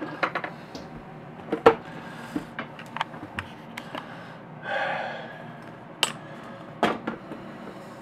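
Hard plastic clicks and knocks as the white plastic housing of a KitchenAid coffee maker is handled and fitted over its base, with a short rustling scrape about five seconds in.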